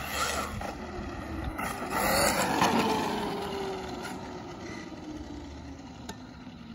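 Traxxas Maxx RC monster truck's 4S brushless motor and drivetrain whining as it speeds past on wet pavement, loudest a little over two seconds in. The whine then falls in pitch as the truck drives away, over a steady hiss of tyres on the wet road.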